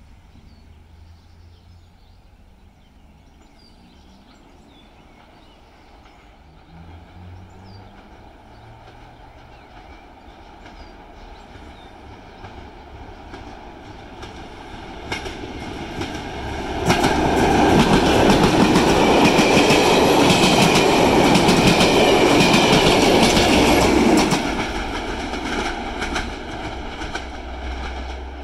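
Network Rail measurement train, top-and-tailed by two GB Railfreight Class 73 locomotives, approaching and passing. A low rumble grows slowly over the first half. Then a loud rush of wheels on rail with clickety-clack from the rail joints lasts about seven seconds and drops away as the train recedes.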